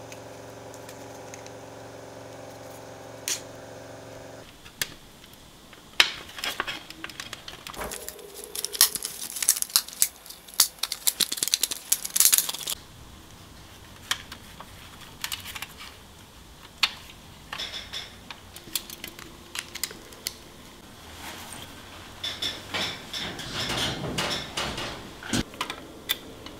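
Irregular clicks, taps and light clattering of a toy airliner's metal and plastic parts being handled and taken apart, in two busy stretches. A steady hum runs through the first four seconds or so, then stops.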